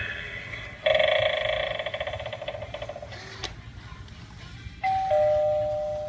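Gemmy animated eyeball Halloween doorbell playing its electronic sound effects. A loud bell ring starts about a second in and fades over a couple of seconds, then there is a click, and a two-note ding-dong chime begins near the end.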